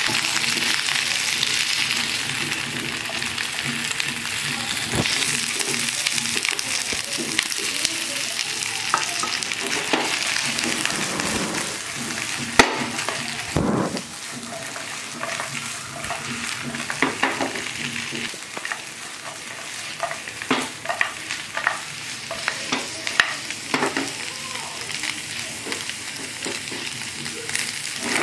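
Fried chicken lollipops sizzling in sauce in a nonstick frying pan, stirred and tossed with a silicone spatula, with scrapes and knocks of the spatula and pan. The sizzling is strongest in the first half and eases off after one loud knock about halfway, leaving scattered clicks of stirring.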